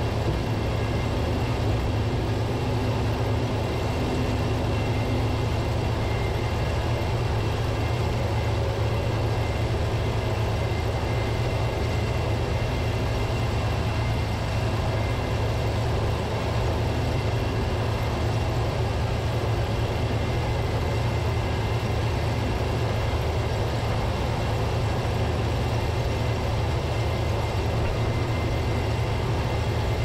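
New Holland TX67 combine harvester running steadily while harvesting corn: an even, low diesel engine hum with faint steady higher tones from the machine.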